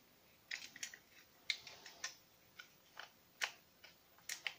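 3D-printed plastic parts of a prop pistol clicking and clacking as they are handled and worked by hand: a dozen or so sharp, irregular clicks, some in quick pairs and triplets.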